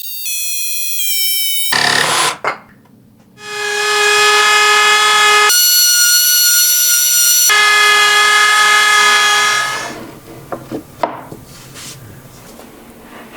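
An electric power tool's motor whining steadily, in several stretches that change pitch abruptly; the longest runs from about three and a half to ten seconds. Light clicks and knocks follow near the end.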